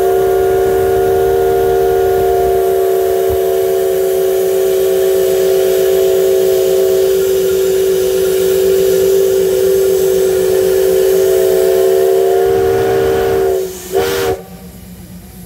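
Steam whistle of the C56 steam locomotive C56 15 blowing one long, loud blast, a steady chord of several tones. Near the end the chord sags in pitch and cuts off.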